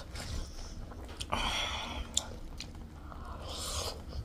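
Close-miked eating sounds: a person chewing a soft, saucy spoonful of gilo chatpate, with wet mouth noises and a couple of sharp clicks about halfway through.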